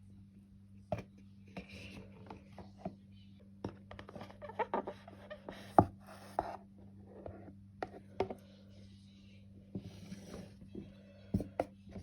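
Perfume packaging and bottle being handled during an unboxing: scattered sharp clicks and taps, the loudest about halfway through, with short bursts of rustling, over a steady low electrical hum.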